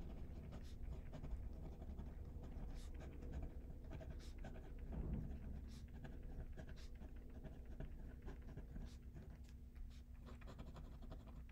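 Faint scratching of a pen writing on paper, a run of short irregular strokes, over a low steady hum.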